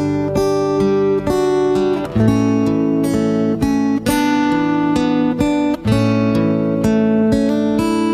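Background music: an instrumental passage of acoustic guitar playing chords, without singing.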